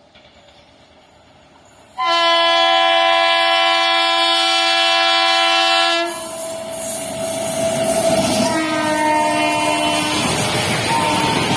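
WAG9 electric locomotive's horn sounding a loud long blast about two seconds in, dropping slightly in pitch about six seconds in as the locomotive passes, then a second, fainter blast. Under it the passing ICF coaches make a steady rushing and rattling of wheels on the rails.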